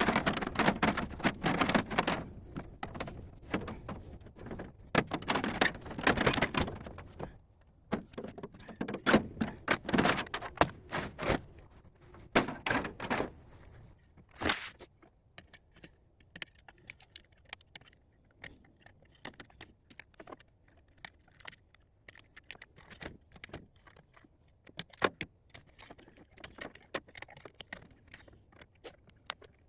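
Irregular knocks, clinks and scrapes of things being handled, dense for the first seven seconds, then thinning out to scattered clicks and an occasional louder knock.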